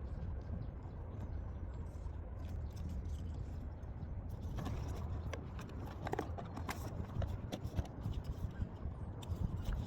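Hands handling album packaging: scraping and rustling, with many sharp clicks and crinkles starting about halfway through, over a steady low rumble.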